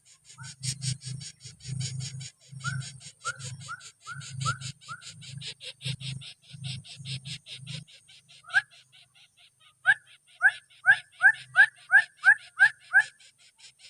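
Coucal sounds at the nest: low deep pulses about twice a second, with a fast high rattle above them. Near the end comes a quick run of about ten short rising squeaky calls, the loudest part.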